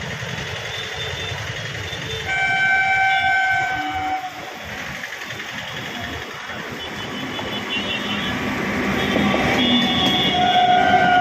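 Indian Railways MEMU electric train sounding its horn: one blast of about a second and a half, two seconds in, and another starting near the end. The train's running noise grows louder throughout.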